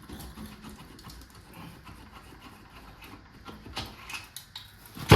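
Faint scraping, rubbing and small metal clicks of hands and tools working a cylinder head loose on a 6.5 turbo diesel engine, ending on a sudden loud thump right at the end.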